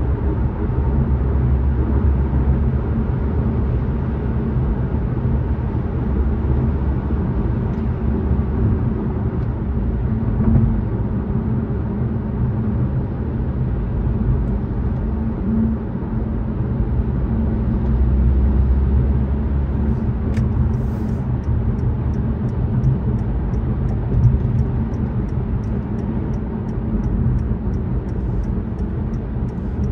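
Steady low road and engine rumble of a car driving. About two-thirds of the way through, a faint regular ticking of about two a second starts.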